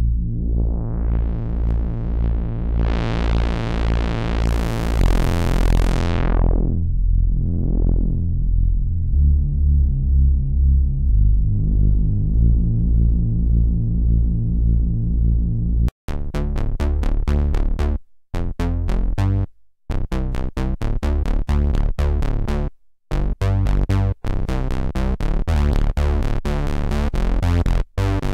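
DIY analog synthesizer playing a bass patch. For the first half the low notes are held while the filter sweeps open to a bright buzz and closes again. From about halfway it plays short, choppy staccato bass notes with brief gaps between them.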